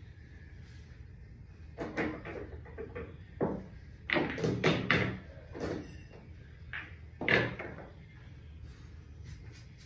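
A string of irregular knocks and clacks from handling at a pool table, clustered about four to five seconds in, with a sharp one about seven and a half seconds in, over a low steady hum.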